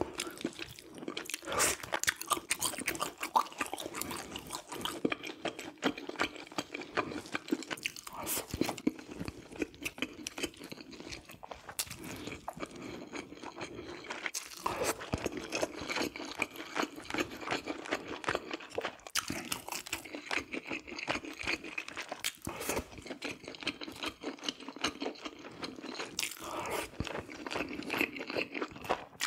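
Close-miked eating sounds: chewing on braised red sea bream, with many short crunches and clicks throughout.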